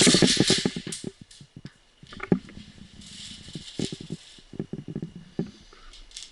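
Airsoft electric rifle firing a rapid rattling burst in the first second, then a few scattered single clicks and some rustling.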